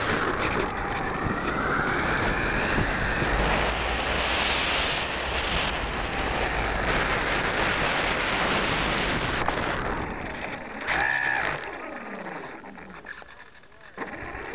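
Onboard sound of a small electric RC floatplane (Ares Gamma Pro) flying: motor and propeller whine gliding up and down in pitch over wind rush. After about ten seconds the motor drops away as the plane comes down onto the water, with a brief burst of motor near eleven seconds, and quieter water sounds after that.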